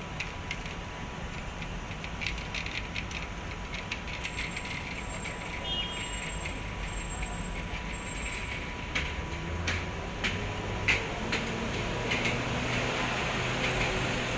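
City street ambience: a steady rumble of traffic with scattered clicks and taps throughout, and a low engine hum rising near the end.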